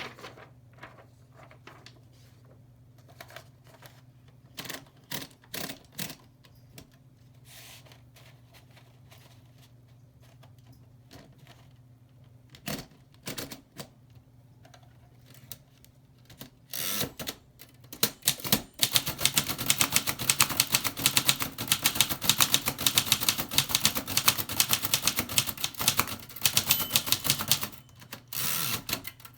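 Remington Portable #2 typewriter: scattered single clicks and clacks of the mechanism for the first half or so, then rapid, continuous typing, the typebars striking in a fast, dense run from about two-thirds of the way in, with a brief pause near the end. A faint steady low hum lies under the quieter first part.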